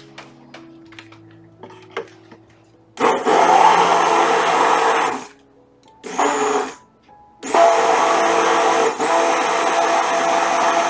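Electric stick blender running in a pot of hot-process soap batter, mixing freshly added lye water into the melted oils: it starts about three seconds in, runs for about two seconds, stops, gives a short pulse, then runs steadily. Soft background music plays before it starts.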